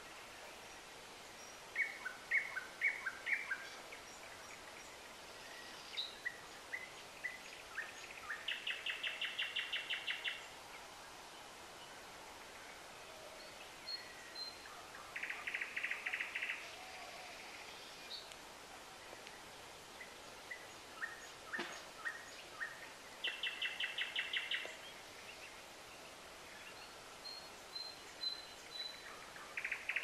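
A songbird singing phrases of a few separate notes that run into a fast, evenly repeated trill, one phrase every seven seconds or so, with fainter high chirps between.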